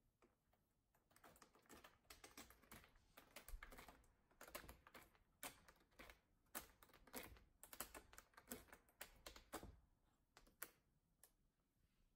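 A Norwegian Forest Cat's claws scratching a corrugated-cardboard scratcher, in quick runs of rasping strokes that start about a second in and thin out to a few scattered scratches near the end.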